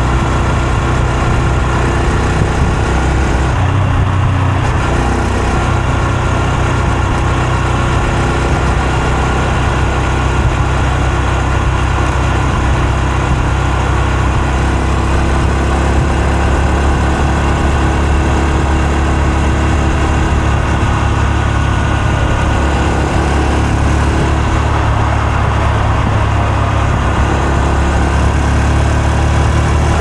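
Honda Super Cub C125's air-cooled single-cylinder four-stroke engine and exhaust running at a steady, even note, with a brief change in the sound about four seconds in.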